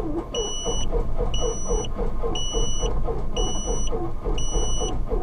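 Starter cranking the TB20's fuel-injected six-cylinder Lycoming IO-540 over at about five compression beats a second without it catching: a hot injected engine that is hard to start. Heard inside the cockpit, with an electronic beep of about half a second repeating once a second.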